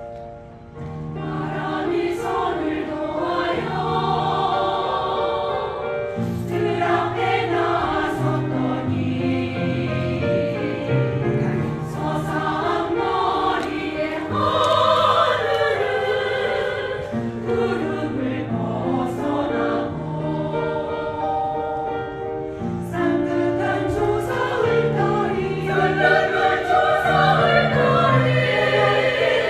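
Music with a choir singing together over an accompaniment, held notes over a bass line, swelling up about a second in.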